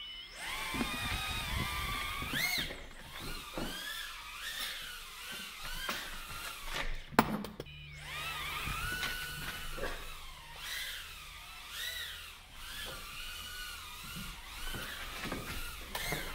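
Tiny Whoop micro quadcopter's motors whining, the high pitch rising and falling as the throttle is blipped up and down. A sharp knock about seven seconds in, where the whine briefly drops out.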